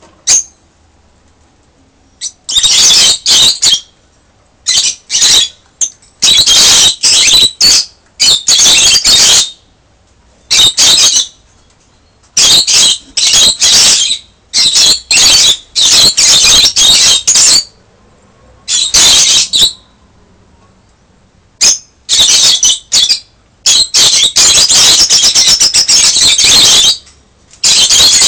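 Masked lovebirds in an opened nest box giving loud, harsh screeching calls in repeated bursts, starting a couple of seconds in and running longer near the end. It is the defensive outcry of a nesting bird at the intrusion.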